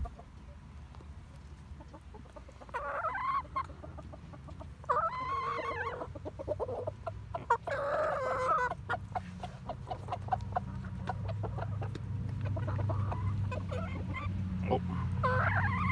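Backyard hens clucking as they feed, with several longer drawn-out calls of about a second each and a run of quick ticks in the middle. A low steady rumble builds through the second half.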